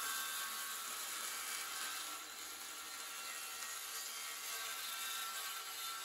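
DeWalt 6-1/2-inch cordless circular saw cutting through a sheet of 1/8-inch hardboard, its motor running steadily with a whine under the blade's cutting noise.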